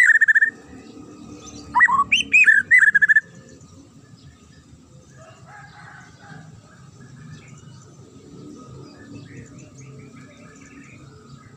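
White-rumped shama (murai batu) singing loud, sharp, clear whistled phrases with quick rising and falling notes, first at the start and again about two to three seconds in. After that only faint, scattered chirps are heard.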